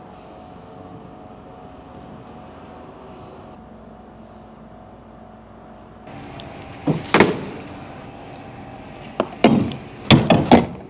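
Metal clanks and knocks from a refrigerated semi-trailer's rear doors as they are handled: one loud knock about seven seconds in and a quick cluster near the end. They come over a steady high whine that starts abruptly about six seconds in, after a low steady hum.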